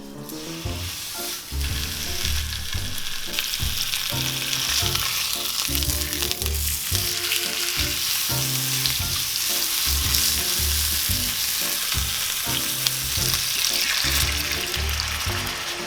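Pork frying in a hot pan with a steady sizzle, with background music running underneath.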